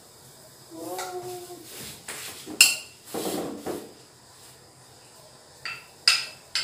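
A metal ladle clinking against a ceramic plate and a stainless-steel pot as fish are ladled into the pot. There are a few sharp clinks. The loudest comes about two and a half seconds in, and two more come near the end.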